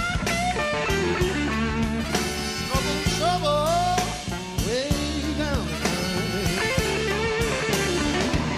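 Background music: a blues-rock song with electric guitar lines bending in pitch over a steady drum beat.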